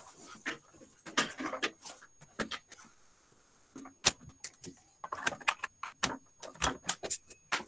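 Irregular clicks, knocks and rattling from cables and equipment being handled near the microphone while a computer is plugged in, with a short lull about three seconds in.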